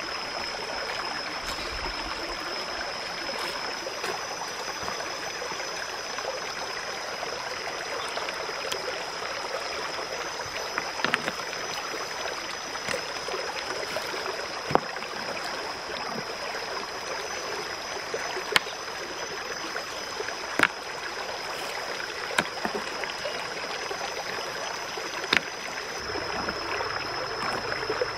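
Steady rush of a stream over rocks, with a thin steady high tone above it and a few sharp clacks of stones knocking together as rocks are set in place around the pumpkins.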